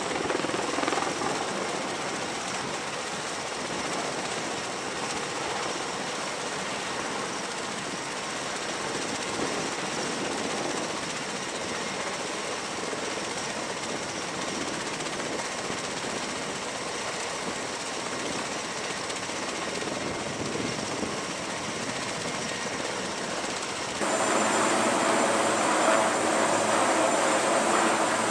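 MV-22 Osprey tiltrotors running on and over a carrier deck: a steady rotor and engine rush. Near the end it cuts abruptly to a louder Sea King helicopter turning its rotors on the deck, with a steady high turbine whine over the rotor noise.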